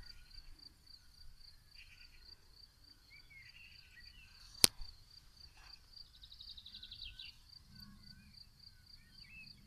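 Faint insect chirping in a meadow: a steady, high, evenly pulsed call about three pulses a second, with scattered bird chirps. A single sharp click about four and a half seconds in is the loudest sound.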